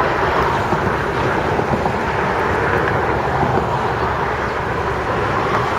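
Metrolink test train of Hyundai Rotem cars rolling through, a loud, steady rushing rumble of wheels on the rails.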